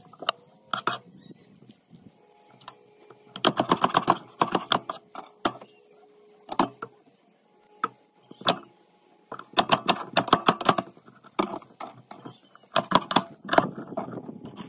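Chef's knife chopping a red onion on a wooden cutting board: quick runs of rapid chops with single knocks between.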